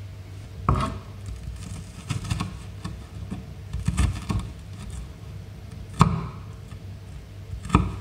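Kitchen knife chopping frozen okra on a wooden cutting board: a handful of separate, irregular knocks of the blade against the board, a second or more apart, the sharpest about six seconds in and again near the end.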